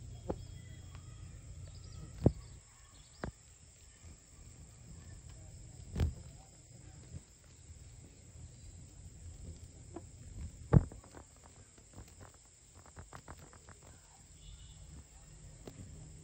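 Night insects, likely crickets, keep up a steady high-pitched chirring. A few sharp knocks cut through it, the loudest about two seconds and about eleven seconds in, with a run of small clicks near the end.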